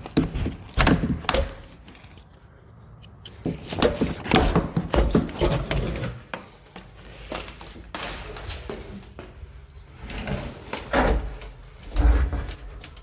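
Irregular knocks, bumps and scraping of a person clambering in through an opening, with a few heavier thuds, the heaviest near the end.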